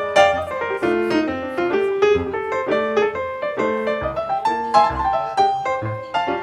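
Background piano music: a flowing run of struck notes over a lower accompaniment.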